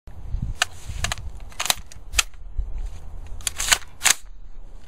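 A series of sharp metallic clicks and clacks from a DoubleStar AR-15 rifle being handled, with its action and magazine worked by hand. There are about eight irregular clicks, the loudest close together around three and a half to four seconds in.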